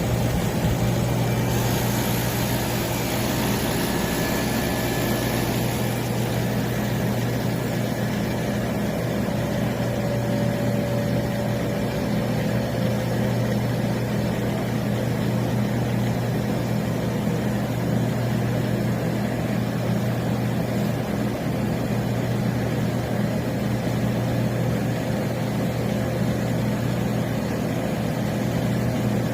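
Commercial upright freezer running: a steady low mechanical hum. A hiss joins in a couple of seconds in and stops about six seconds in.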